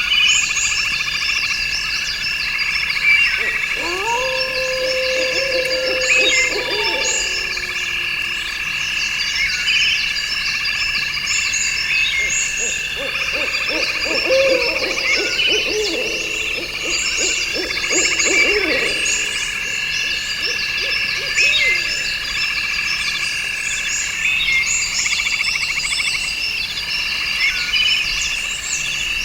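Nature soundscape of insects trilling steadily in two high pitches under many quick high chirps from birds and insects. Twice, a few seconds in and again around the middle, lower animal calls rise and fall over the chorus.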